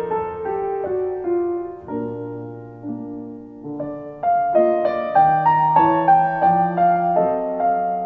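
Solo piano playing a slow classical piece, single notes and chords ringing and fading. It grows louder about halfway through.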